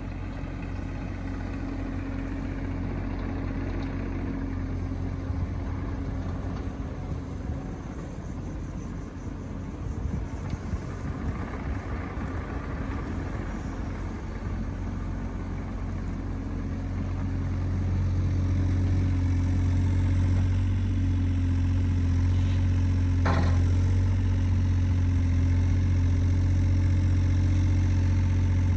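Engine idling steadily, growing louder about halfway through as it comes closer or picks up, with one brief click near the end.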